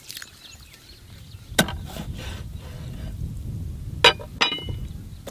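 Sharp chops of a machete on a wooden cutting board while cutting up rohu fish: one about a second and a half in, then two close together near the end, the last leaving a short metallic ring from the blade.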